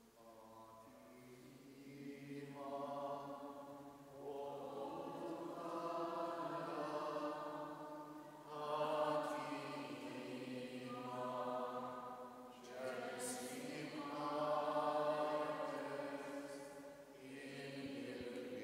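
Voices singing a slow hymn in long held notes, in about five phrases of a few seconds each with short breaths between them.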